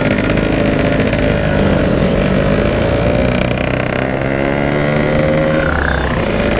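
Yamaha RX-King's 135cc single-cylinder two-stroke engine running hard at a steady high speed, with a low rush of wind noise underneath.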